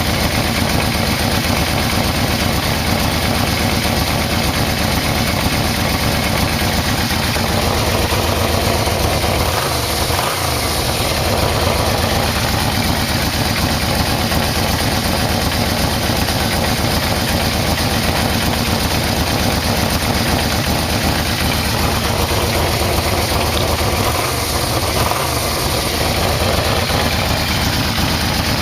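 Yamaha VMax V4 motorcycle engine idling steadily while its carburettors are being synchronized, with two brief dips in the sound, about a third of the way in and near the end.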